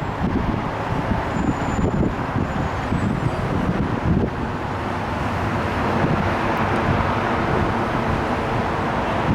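A passing train's steady rumble and rail noise, a little stronger in the second half, with no horn sounding.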